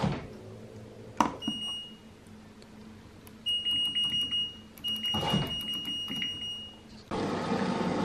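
Washer-dryer control panel beeping while the child lock is on: a short high beep, then two longer beeps, as its buttons and programme dial are tried. A button click comes at the start and another about a second in, and a steady noise rises near the end.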